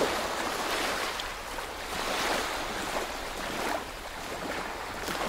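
Ocean surf: waves washing onto a beach, a rushing hiss that swells and eases in slow surges.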